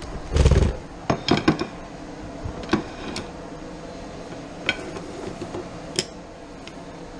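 Kitchen handling sounds: a dull thump about half a second in, then scattered clicks and light knocks as a cutting board and pan are moved about on the counter.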